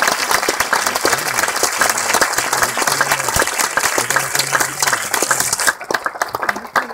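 Audience applauding in a cinema auditorium: dense clapping that thins out abruptly about six seconds in, leaving a few scattered claps.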